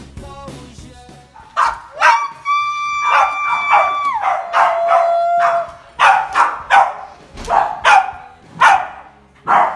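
Background music, then from about a second and a half in, small dogs yapping in sharp, high barks. In the middle comes a long whine held on one pitch for about two seconds that then steps down lower and holds, followed by yaps repeating roughly every half second.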